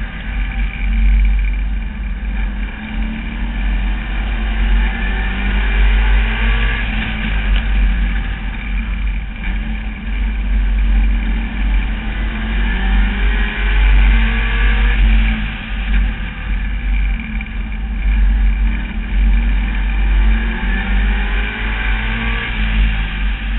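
Street stock race car's engine heard from the in-car camera during racing, rising in pitch several times as it accelerates and easing off between, over a heavy low rumble.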